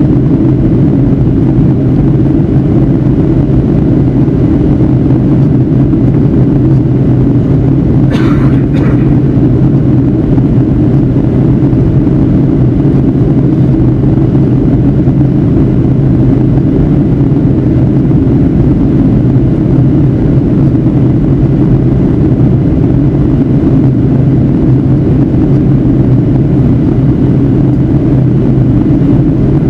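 Steady, loud cabin drone of a Boeing 757-300 in flight: engine and airflow noise heard inside the cabin at a window seat over the wing. A brief hiss cuts in about eight seconds in.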